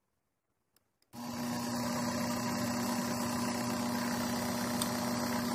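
Two faint clicks, then about a second in an electric mixer motor switches on and runs steadily, spinning a washing machine pump wired as a generator. It holds a steady low hum with a high hiss above it.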